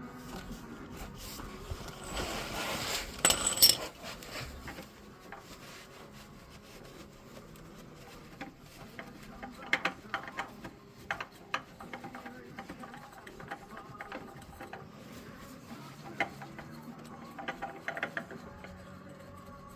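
Scattered clicks and knocks of tools and parts being handled during a truck oil change. A brief loud rushing noise comes about two to three seconds in.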